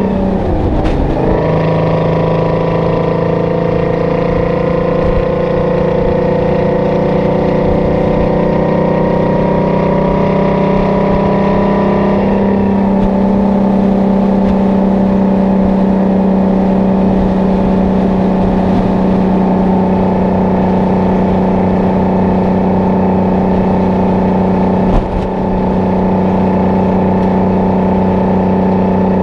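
Detroit Diesel 12V-71 two-stroke V12 diesel of a Kenworth W900A pulling a 40 ft container, running under load. The revs drop at a gear change near the start, climb slowly, drop again at another shift about twelve seconds in, then hold steady at cruise, with a short thump near the end.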